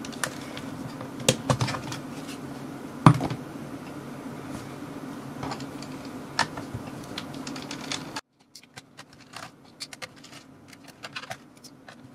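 Light clicks and taps of plastic and a screwdriver on the underside of a Dell Inspiron Mini 10 netbook as its battery and screws are taken out, with one louder knock about three seconds in. A steady low hum sits under them and cuts off abruptly about eight seconds in.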